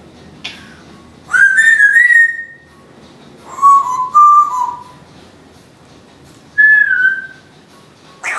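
Timneh African grey parrot whistling three short phrases of clear notes: a higher phrase a little over a second in, lower notes around the middle, and a single falling whistle near the end.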